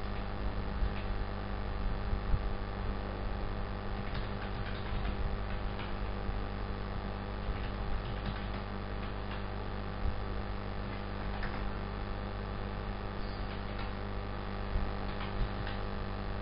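Steady electrical mains hum from the recording setup, with scattered faint clicks of computer keyboard typing and mouse clicks.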